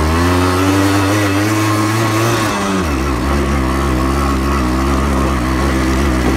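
Yamaha RX-100's two-stroke single-cylinder engine running under load as the motorcycle climbs a rocky dirt track. Its pitch climbs for about two and a half seconds, then drops and holds steady.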